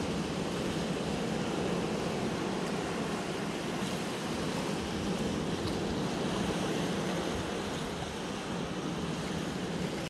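Small ocean waves washing onto a sandy beach: a steady, even wash of surf with no single break standing out.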